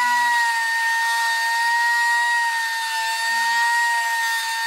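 Die grinder running flat out with a steady high-pitched whine, spinning a diamond-coated carbide stud sharpening tool on a snowmobile track's carbide stud. This is the second stage, blending the exposed carbide tip into the stud's host material.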